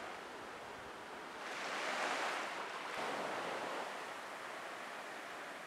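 Faint rushing of surf, swelling about a second and a half in and easing off after about three and a half seconds.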